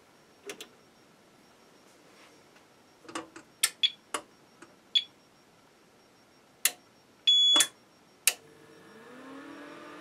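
APC Smart-UPS SUA1500I starting up: a series of relay clicks and short high beeps, a longer beep about seven seconds in, then its fan spinning up into a hum that rises in pitch and settles steady. The start-up is clean, without grunting, its 22 µF capacitors freshly replaced.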